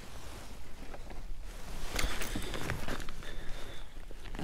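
Rustling of a gloved angler's clothing and gear aboard a kayak, with light knocks and clicks and a few sharper clicks about two seconds in.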